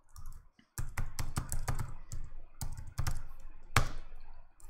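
Typing on a computer keyboard: a quick, irregular run of key clicks, with one louder keystroke near the end.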